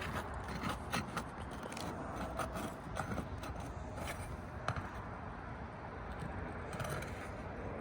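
Roofer's snake tool scraping and clicking under asphalt architectural shingles as nail fasteners are worked out, in scattered short knocks and scrapes.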